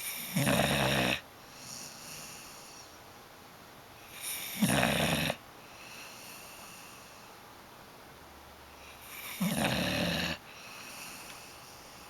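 A sleeping dog snoring: three loud, rasping snores about four and a half seconds apart, each followed by a fainter, shorter breath sound.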